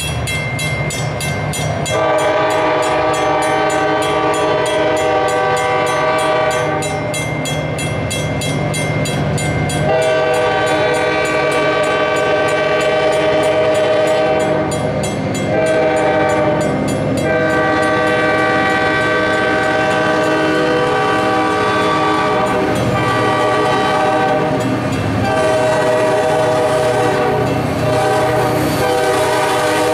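Freight diesel locomotive's air horn sounding a series of long blasts with one short blast between them, the grade-crossing signal, over the low rumble of the approaching train. A crossing bell rings rapidly and evenly underneath, clearest before the horn starts.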